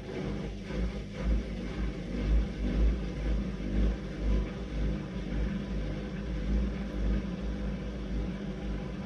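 Bauknecht washing machine on a high-speed spin at 1400 rpm, a loud rumbling drone with a pulsing low throb that cuts off suddenly at the end.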